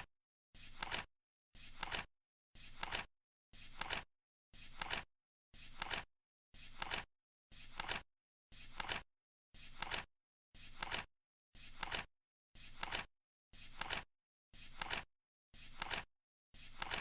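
Flip-clock sound effect: a card flapping over once a second as the countdown runs, each flip a short swell ending in a sharp click, with dead silence between flips.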